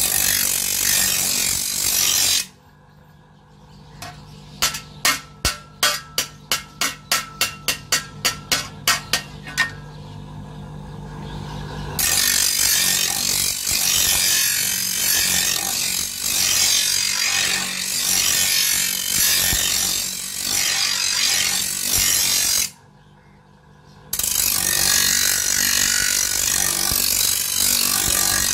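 Motor-driven grinding wheel grinding the steel edge of a hand-plough blade: a loud, steady grinding hiss over the motor's low hum. It breaks off a few seconds in, and during the break about a dozen sharp ringing metal strikes come at roughly three a second. The grinding then resumes and drops out once more briefly near the end.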